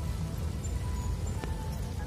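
Background music, with a few high notes changing pitch over a low rumbling noise.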